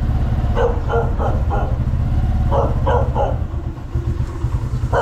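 A dog barking in two quick runs of three or four barks, over a steady low rumble.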